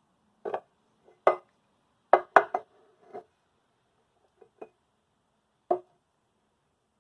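A series of irregular knocks and clatters, hard objects striking, some with a short ring; the loudest come in a quick cluster about two seconds in.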